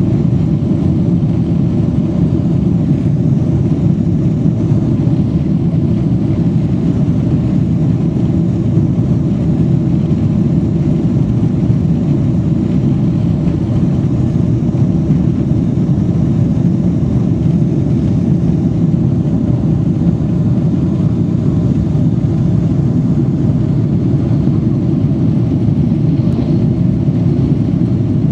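Jet airliner's engines at takeoff thrust, heard from inside the cabin: a loud, steady, deep noise that holds level through the takeoff roll and the liftoff into the climb.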